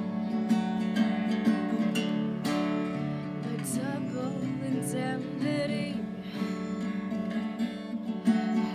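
Tanglewood acoustic guitar playing ringing chords, with a woman's voice singing a short phrase around the middle.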